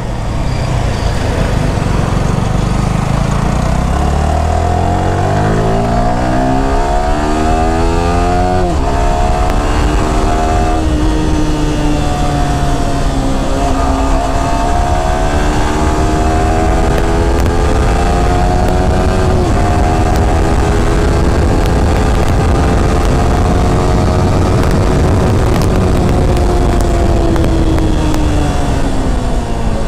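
Yamaha R15 V4's 155 cc single-cylinder engine accelerating hard: the pitch climbs for several seconds and drops sharply at quick-shifter upshifts, about nine and eleven seconds in. It then runs at fairly steady cruising revs with a rush of wind noise.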